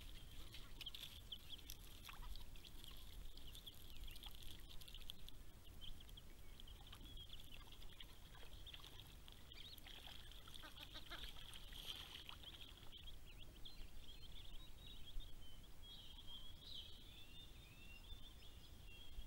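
Faint, rapid high-pitched peeping of Australian wood duck ducklings over a low steady rumble, with a few sliding calls near the end.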